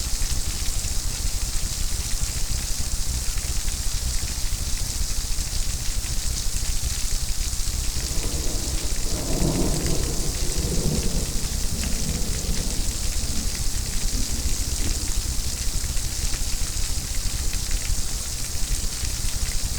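Steady heavy rain hissing, with a rumble of thunder swelling about eight seconds in and fading away over several seconds.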